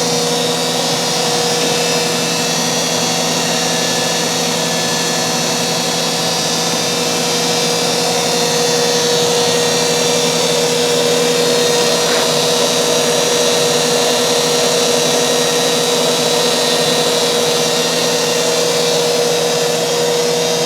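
Heald No. 271 toolroom internal grinder running steadily through its automatic cycle, an even machine whine made of several constant tones. The machine sounds healthy.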